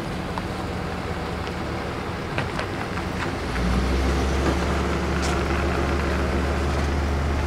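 A motorhome pulling slowly away with a car flat-towed behind it: steady vehicle noise, with a deep engine hum that comes in and grows louder about halfway through as the back of the motorhome passes close by.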